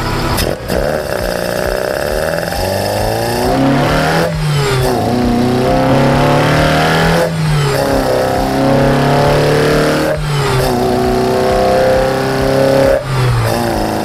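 Toyota 4A-GE Blacktop 20-valve 1.6-litre four-cylinder breathing through individual throttle bodies and open trumpets, heard at the intake trumpet while driven at part throttle. The intake note climbs and falls back, with a short break about every three seconds, as at gear changes.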